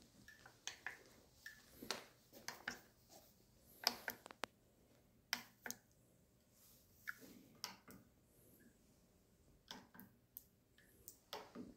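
Scattered light clicks and taps at irregular intervals, a few a second at most, over a near-silent small room.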